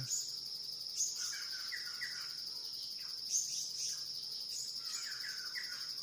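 Forest ambience: a steady high-pitched insect drone, with short falling bird chirps in small groups about a second in and again near the end.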